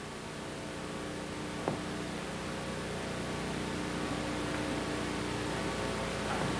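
Steady background hiss and hum, with one brief soft click a little under two seconds in.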